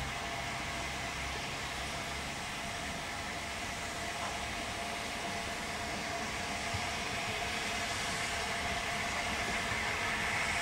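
Steam locomotives working slowly at a station, a steady hiss of steam that grows a little louder near the end as one approaches.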